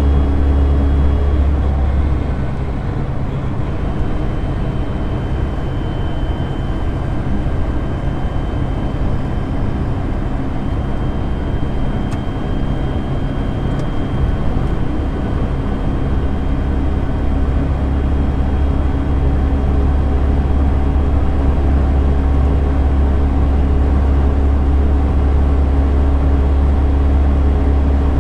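Interior noise of a Lada Niva cruising at motorway speed. A steady deep engine and drivetrain drone runs under road and wind noise, with a thin high whine from the gearbox. The drone eases a couple of seconds in and builds back up over the second half.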